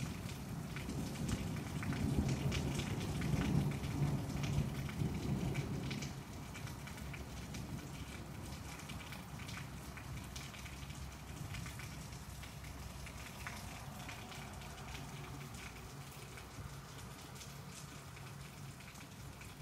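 Rain falling steadily, with many small drop ticks, while a low rumble of thunder carries on and dies away about six seconds in.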